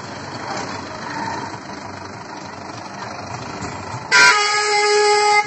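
Engine and road noise from slow-moving vehicles, then about four seconds in a single loud vehicle horn blast, one steady tone held for just over a second.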